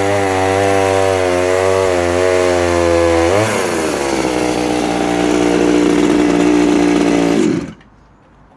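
Vintage Pioneer P20 51cc two-stroke chainsaw running hard while cutting very hard timber. Its pitch swings about three seconds in and settles lower, then the engine cuts off suddenly near the end.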